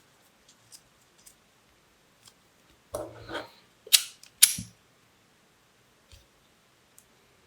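Faint handling and rustling of ribbon, then two sharp clicks about half a second apart, a lighter being struck to heat-seal the folded edge of the ribbon.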